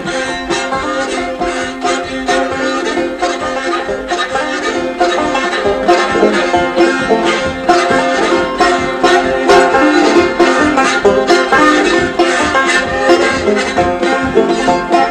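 Old-time banjo music playing an instrumental break with no singing: a steady, dense run of plucked notes over sustained tones.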